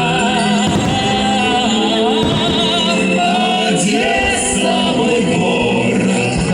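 Music with singing voices, several of them together, holding long notes with vibrato.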